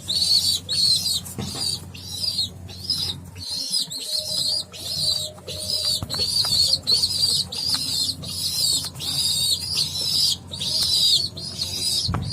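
A 21-day-old domestic pigeon squab peeping over and over, about two high-pitched peeps a second. These are the begging calls of a young pigeon that cannot yet feed itself.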